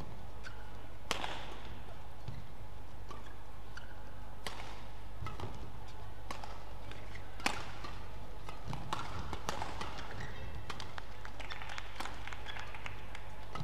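Badminton rackets striking a shuttlecock during a doubles rally: a series of sharp, short cracks a second or several apart, the loudest about halfway through, over a steady low hum of the hall.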